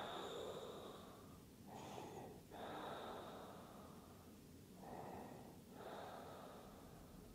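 A woman breathing slowly and audibly: soft breaths in and out, about five swells at an even pace.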